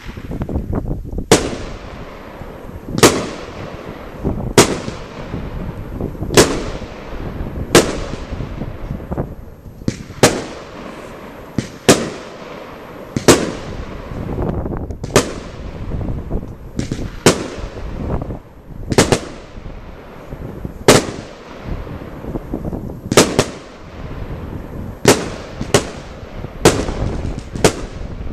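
Lesli Royal Class "Blinking Tiger" 26 mm, 25-shot firework battery firing shot after shot, a sharp bang roughly every one and a half to two seconds, with a continuous rumbling crackle between the bangs.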